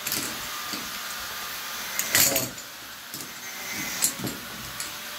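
Pipe fittings being handled and sorted by hand: a clatter and rustle about two seconds in, then a couple of knocks around four seconds.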